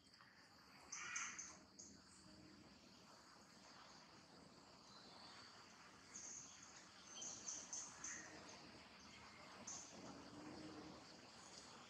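Near silence: faint outdoor ambience with scattered high-pitched chirps, a few short clusters of them about six to eight seconds in.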